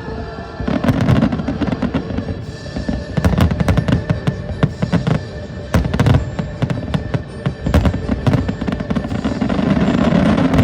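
Fireworks going off in a dense barrage: many sharp bangs and crackles in quick, irregular succession over a low rumble, with music playing alongside.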